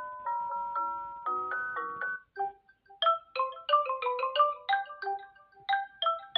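Samsung Galaxy A26 ringtone melodies in marimba- and glockenspiel-like tones. About two seconds in, a tune of evenly spaced ringing notes breaks off, and after a few scattered notes a quicker tune of short, higher notes begins about three seconds in.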